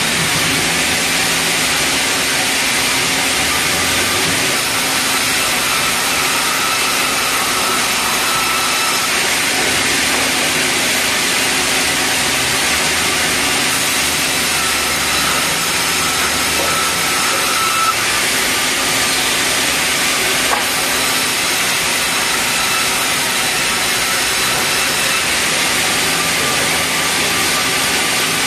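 Sawmill band saw running steadily and ripping red meranti hardwood planks into smaller lumber, a loud, even machine noise with no breaks.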